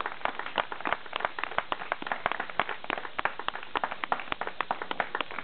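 Audience applauding, with many separate, irregular claps standing out.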